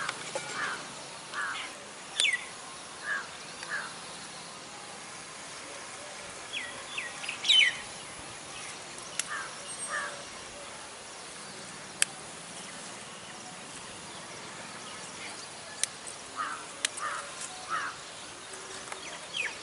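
Birds calling now and then, short chirps and a few quick falling notes, over a steady outdoor hiss, with several single sharp clicks in the second half.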